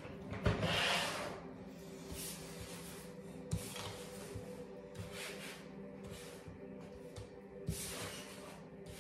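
Soft background music with long held tones, over rustling and light taps of tarot cards being handled and laid out on a table. The loudest rustle comes about a second in, with single taps later.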